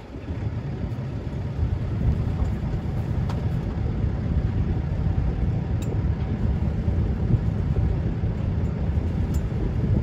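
Sailing yacht's inboard engine running steadily as the boat motors, with wind on the microphone.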